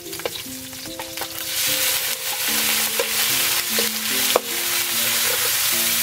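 Shallots, garlic and pork belly sizzling in hot oil in a steel wok, stirred with a spatula that scrapes and clicks against the pan. The sizzle grows louder about a second and a half in. A soft piano tune plays underneath.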